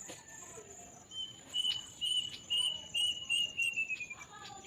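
A small bird calling a rapid series of short high notes, starting about a second in and falling slightly in pitch near the end, over a steady high-pitched insect trill.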